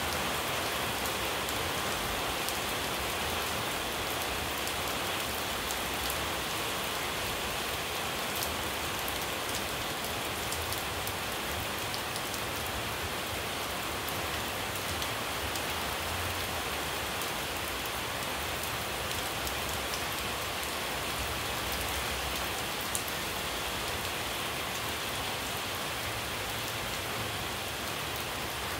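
Steady rain falling on puddled ground and leafy trees, an even hiss with scattered drop splashes.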